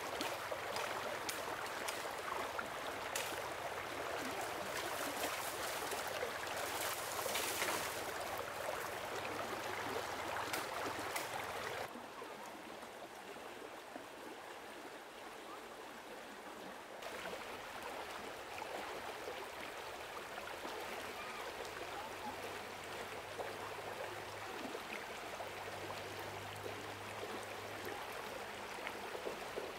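Stream water running steadily, with scattered sharp knocks in the first part. The water drops quieter about twelve seconds in for several seconds, then runs steadily again.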